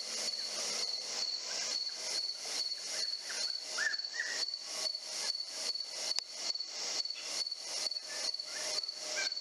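Night insect chorus of crickets and katydids: loud, rhythmic rasping pulses about two a second over a steady high-pitched trill.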